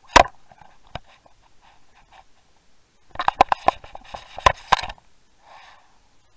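Sharp knocks and clicks picked up through an underwater fishing camera's housing: one hard knock at the start, another about a second in, then a quick rattling run of knocks and clicks lasting nearly two seconds.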